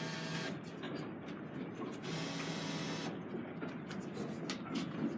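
Vending machine mechanism motor whirring in two short runs, one ending about half a second in and another of about a second starting two seconds in, with small clicks in between.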